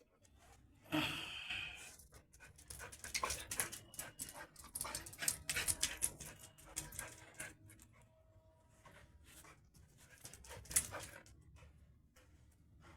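A dog panting, in quick runs of short breaths that come and go, with a louder breathy burst about a second in and another near the end.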